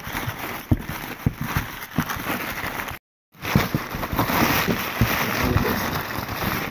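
Crumpled newspaper packing rustling and crinkling as gloved hands dig through it in a cardboard box, with many small crackles. The sound cuts out completely for a moment about three seconds in.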